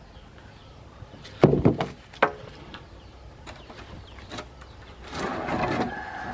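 Heavy wooden knocks and thuds, the loudest about a second and a half and two seconds in, then a louder rustling, crashing stretch near the end, with the chainsaw not running.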